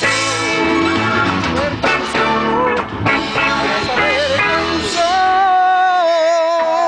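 Live reggae band playing with a singer; about five seconds in the bass and rhythm drop away under a long held note with vibrato.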